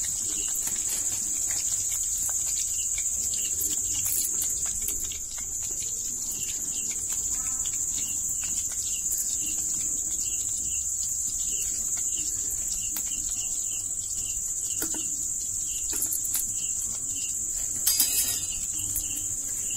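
Steady, high-pitched chirring of insects, with a fainter short chirp repeating about twice a second. Brief clatters come about four seconds in and again near the end.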